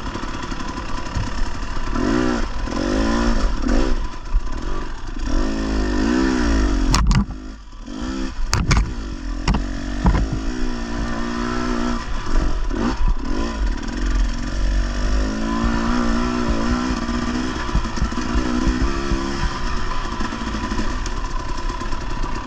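Husqvarna TE 300 two-stroke dirt bike engine, heard from the rider's seat, revving up and down over and over as the throttle is worked along tight singletrack. About seven to nine seconds in, the engine backs off briefly and a few sharp knocks are heard.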